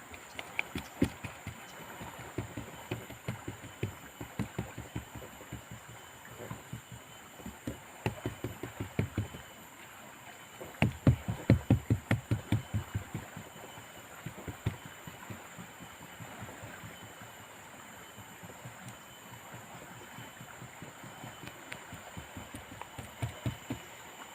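Runs of short knocks or taps, a few a second, coming and going. The loudest run is about 11 to 13 seconds in.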